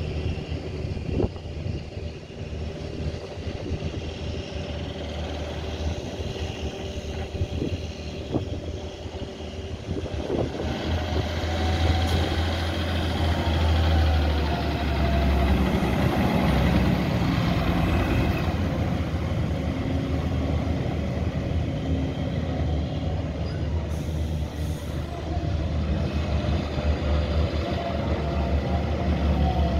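Diesel engine of a John Deere tractor towing a loaded silage trailer past. It grows louder about a third of the way in as the rig comes close, then runs on steadily.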